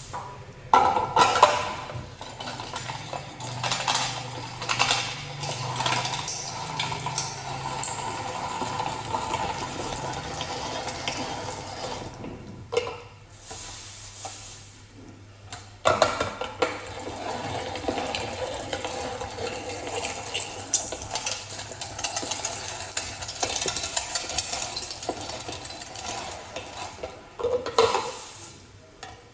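Manual meat grinder being worked by hand, a continuous scraping and clattering of plastic and metal parts with many small knocks. It goes quieter for a few seconds about halfway through, then resumes.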